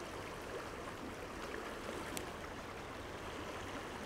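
Stream water flowing with a steady, even rush.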